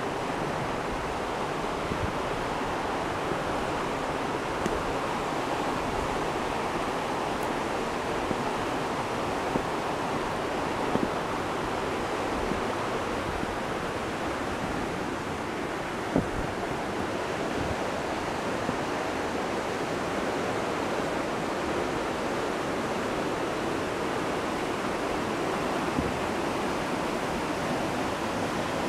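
River water rushing steadily through a gorge, an even noise without pauses, with a few faint knocks now and then.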